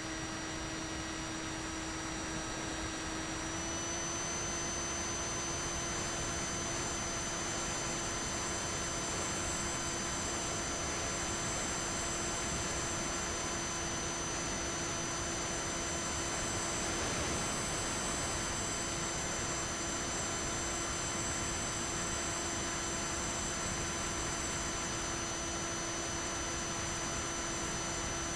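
Bixler 3 RC plane's electric motor and pusher propeller running at steady cruise throttle, a steady whine with its pitch rising slightly about four seconds in, over wind rush.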